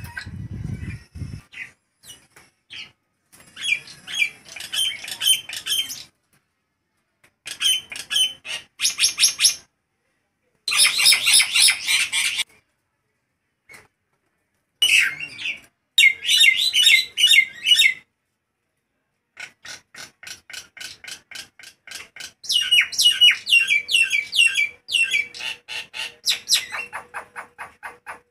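Caged jalak nias (common myna) singing loudly in phrases of rapid repeated chattering notes, each phrase a few seconds long with brief pauses between. A short low rumble sounds in the first second.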